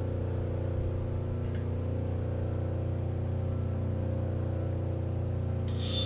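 Bench grinder motor with CBN sharpening wheels running at a steady hum. Near the end a sudden high, ringing metallic sound with falling tones sets in.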